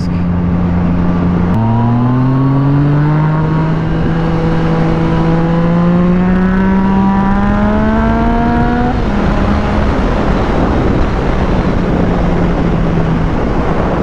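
Yamaha FZ-09's three-cylinder engine under way, its revs climbing steadily for several seconds under acceleration, then easing off about nine seconds in. After that, wind noise on the microphone dominates.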